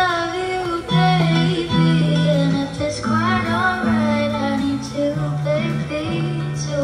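Music: a singing voice holding notes that waver in pitch, over guitar and steady sustained bass notes.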